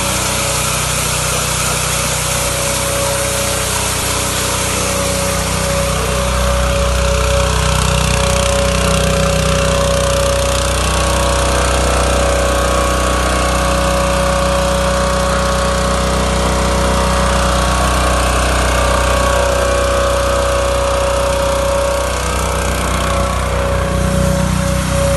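Petrol pressure washer with a 6.5 hp engine running steadily while spraying a high-pressure jet, a constant high whine over the engine's drone. It gets louder about six seconds in.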